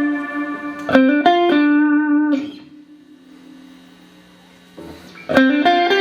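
Clean electric guitar played through a Boss RV-6 reverb pedal into Roland JC-120 amps. A held note gives way to a few picked notes about a second in, which ring and are stopped; after a quiet gap, new notes are picked near the end.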